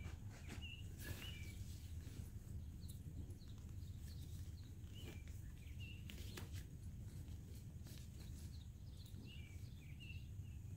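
Small birds chirping in short repeated calls over a steady low background rumble, with a few brief rustles and knocks from a tent and its bag being handled.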